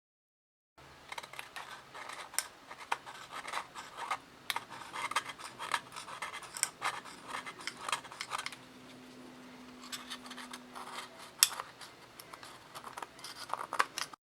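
A blade scraping hardened mugi-urushi (wheat-flour lacquer adhesive) off the glued joint of a ceramic sake cup. It makes a rapid series of short scraping strokes with sharp clicks, starting about a second in and stopping abruptly near the end.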